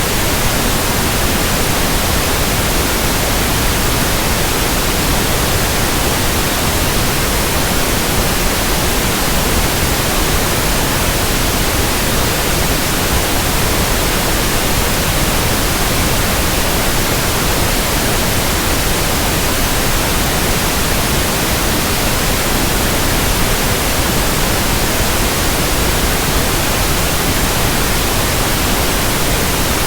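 Synthetic pink noise: a steady, even hiss that fills the whole range from deep rumble to high hiss and does not change.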